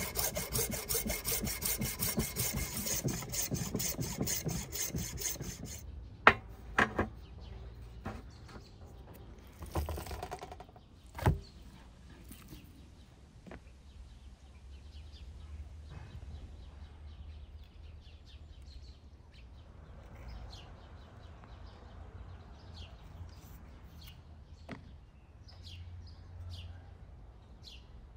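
Saw strokes in a quick, even rhythm for about the first six seconds, then stopping. A few sharp knocks follow, and then faint bird chirps toward the end.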